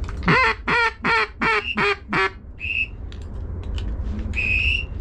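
Mallard duck call blown in a fast string of six loud quacks, calling to a circling mallard that has turned away from the decoys. Then two high whistle notes, a short one and a longer one.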